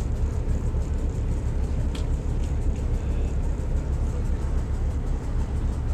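Motor yacht's engine running as the boat moves slowly through the harbour, a steady low rumble.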